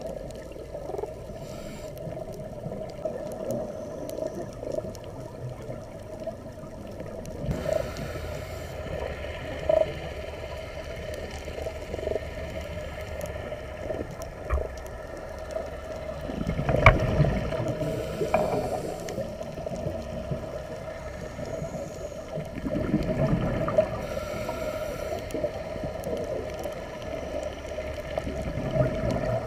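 Underwater sound of a scuba dive: a steady hum with low rumbling, and bursts of exhaled regulator bubbles from a diver about 17 and 23 seconds in.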